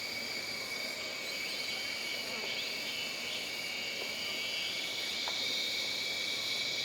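Jungle ambience of insects droning steadily in two high-pitched tones, with a few short chirps over it.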